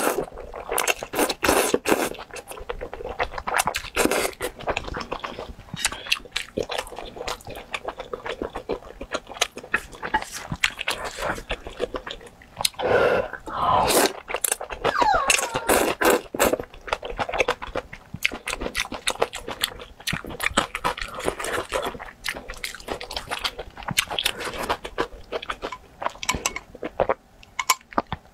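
Close-up eating sounds of spicy stir-fried rice noodles: wet slurping as strands are sucked in, then chewing with smacking clicks. The slurping is louder and longer about halfway through.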